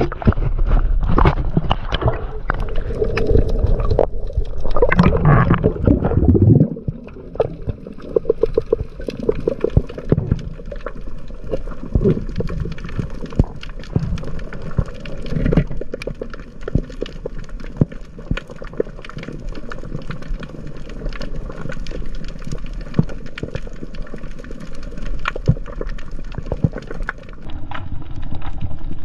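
Water heard through an underwater camera housing: loud muffled sloshing and churning for about the first six seconds, then a quieter hiss with many scattered sharp clicks and ticks.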